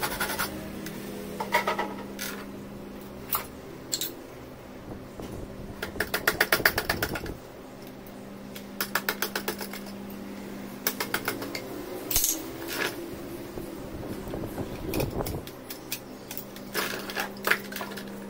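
A handsaw and a chisel working a small piece of wood held in a bench vice. Short runs of quick rasping strokes come several times, with sharp knocks and clicks between them.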